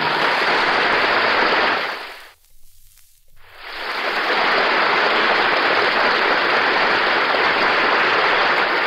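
Studio audience applauding. The applause dies away about two seconds in, then a second round swells up and holds steady.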